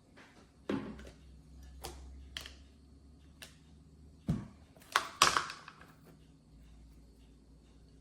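Food chopper parts being handled on a countertop: a series of separate knocks and clatters, about half a dozen, loudest in a quick cluster about five seconds in.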